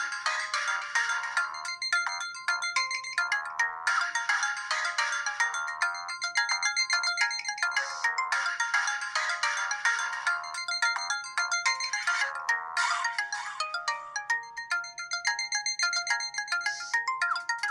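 LG KG800 Chocolate mobile phone playing a built-in ringtone: an electronic melody of several notes at once, its phrase repeating about every four seconds. About thirteen seconds in it gives way to a sparser tune of separate notes.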